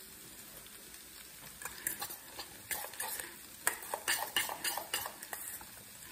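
A utensil stirring a wet mixture of diced tomato, onion and olive oil in a bowl. It starts about a second and a half in, with irregular clinks and scrapes against the bowl.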